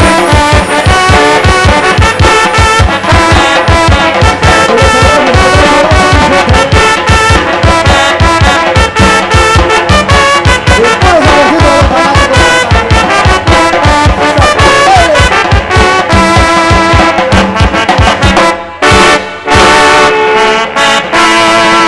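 Live tamborazo band playing: trumpets and trombones over a steady, regular bass-drum beat. The music breaks off briefly about nineteen seconds in and ends on a long held chord.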